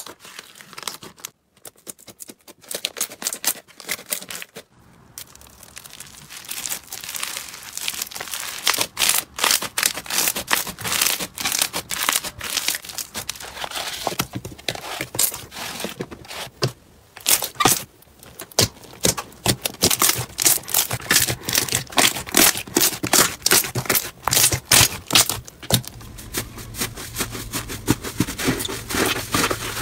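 Hands squeezing, stretching and kneading sticky slime, making a dense run of wet crackles, pops and tearing clicks. The sound is sparse at first and grows thick and busy after a few seconds.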